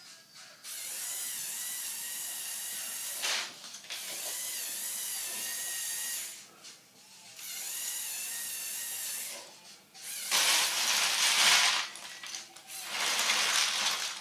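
Small electric motors and plastic gear trains of a Lego Technic Volvo L350F wheel loader model whirring in bursts of two to three seconds with short pauses between. The last two bursts are louder and rougher.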